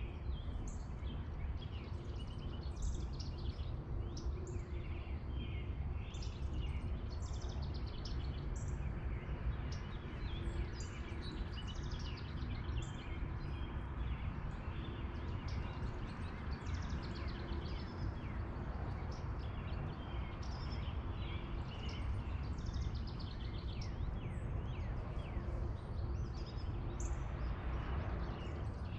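Many small songbirds chirping and calling over a steady low rumble of outdoor background noise.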